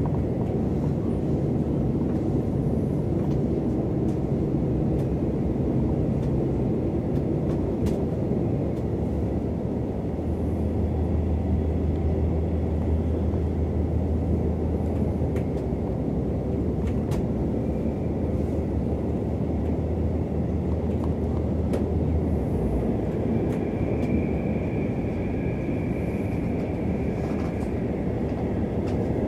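Deutsche Bahn Intercity train in motion, heard from inside a passenger coach: a steady rumble of wheels on the rails. A low hum joins it for about twelve seconds in the middle.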